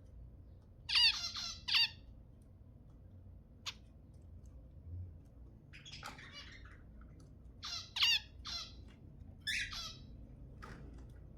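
Zebra finches calling: about a dozen short, high calls in irregular clusters separated by gaps of a second or more.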